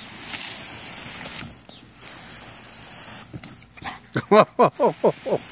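Garden hose jet spraying water with a steady hiss that stops about three and a half seconds in. Then a young Bouvier des Flandres gives a rapid string of short, high, falling yips, about five a second.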